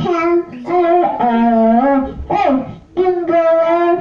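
A child singing long held notes, with a second, lower voice singing along for a moment about a second in.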